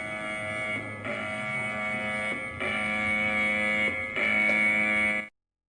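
Emergency alert alarm tone: a steady, buzzy multi-tone drone with no rise or fall in pitch, stepping up in loudness three times before cutting off abruptly near the end.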